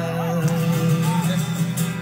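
Live band music over a concert sound system: sustained chords with a wavering melody line above them.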